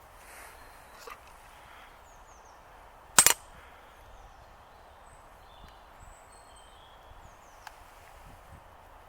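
Faint birds chirping now and then over a quiet outdoor background, with one loud, sharp crack about three seconds in.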